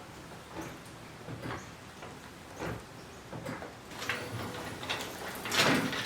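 Scattered light knocks and clanks of the engine and hoist being handled, with a louder, longer noise near the end.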